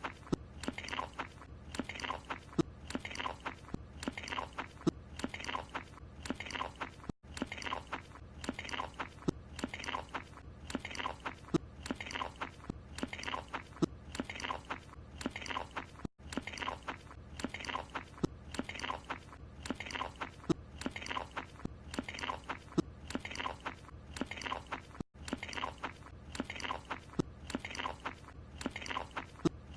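Cartoon sound of a character chewing a croissant: loud, rhythmic open-mouthed munching, about one and a half chomps a second. It is a short eating clip looped over and over, with a brief dropout where it restarts about every nine seconds.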